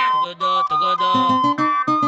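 Music: a reggaeton-funk track with a synth melody of held notes stepping up and down over short, repeated bass notes.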